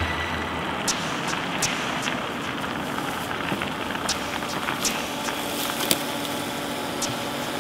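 A car driving along a paved road: a steady rush of tyre and road noise, with scattered sharp clicks.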